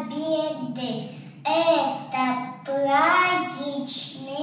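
Small children singing a song, with held notes that slide from one pitch to the next.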